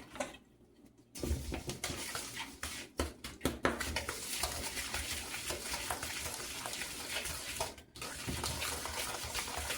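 Butter, sugars, egg and vanilla being creamed together in a mixing bowl: a continuous working noise that starts about a second in, with a few knocks against the bowl and a short break near the end.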